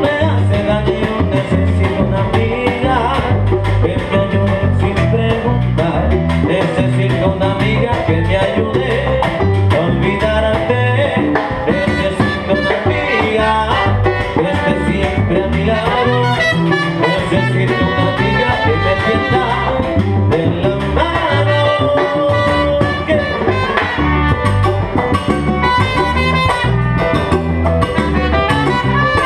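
Live salsa band playing: trumpet lines over congas, bongos, drum kit, piano and electric bass, with a steady driving rhythm.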